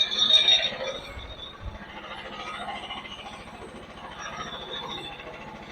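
Portable bandsaw mill's small engine running steadily with an even low pulse, and a high-pitched squeal loudest in the first second.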